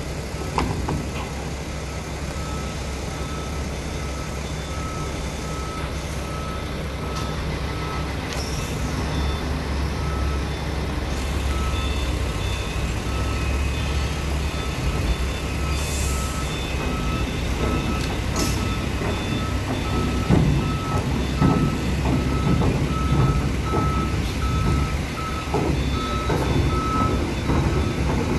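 Crawler excavator's engine running as it tracks along a steel flat-rack deck, with a repeated electronic beeping alarm throughout and clanking from the tracks on the steel in the second half.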